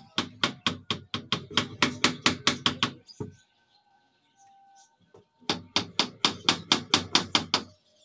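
Hammer striking the wooden frame of a bird cage in two runs of quick, even blows, about five a second: the first lasts about three seconds, then after a pause of about two seconds a second run lasts about two seconds.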